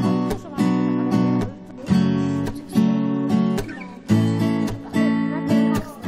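Background music of strummed acoustic guitar, chords struck at a steady, unhurried pace.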